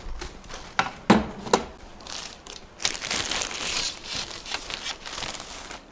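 Packaging crinkling and rustling as telescope tripod legs are pulled out of their wrapping, with a few sharp knocks about a second in.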